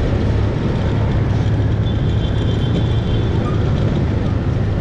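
Motorcycle running as it is ridden slowly through city street traffic: a steady low rumble from its engine and the road, with no break.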